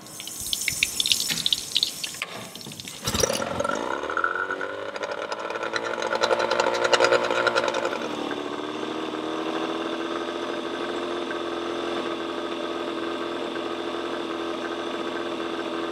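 Yamaha 20 hp two-stroke outboard motor pull-started: it catches about three seconds in, revs higher for a few seconds, then drops to a steady idle. It is idling with its ignition timing a few degrees too advanced, firing before top dead centre instead of the specified 7° after.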